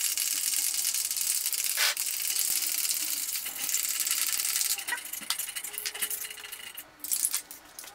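Aerosol can of satin black spray paint being shaken hard, its mixing ball rattling fast inside; about five seconds in the shaking eases to scattered separate rattles.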